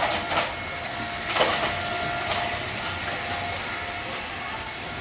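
Tap water running into a stainless steel kitchen sink while fresh greens are rinsed and handled under it, with a few sharp clicks near the start and about a second and a half in.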